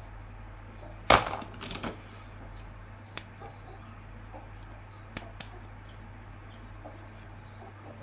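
Handling noises from toys: a sharp click about a second in, a couple of lighter clicks right after it, and a few faint taps later, over a low steady hum.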